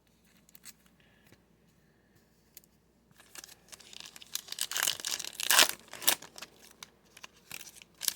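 A foil trading-card pack being torn open, its wrapper crinkling and ripping. The tearing starts about three seconds in, after a quiet start, with the loudest rips a little past the middle.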